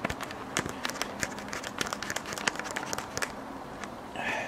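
Irregular clicking and crinkling handling noise from a handheld camera being moved about and swung around.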